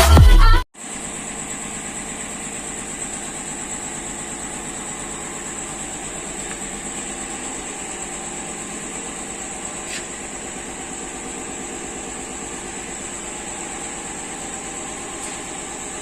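Electronic intro music cuts off abruptly within the first second, giving way to a steady hum of factory machinery with a constant high-pitched whine and no punching strokes.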